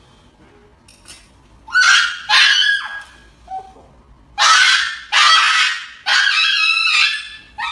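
Small dog screaming in harsh, honking cries while held for an injection, about five loud cries starting around two seconds in.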